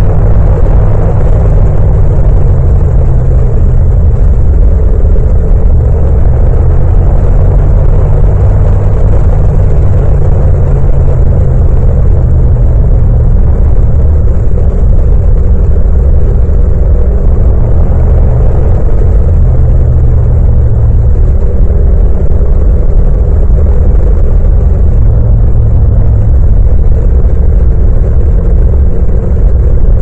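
Yamaha MT-07's 689 cc parallel-twin engine and exhaust running steadily at cruising speed, about 90 to 100 km/h in fifth gear. The engine note rises and eases slightly every few seconds as the throttle is worked, with little wind noise.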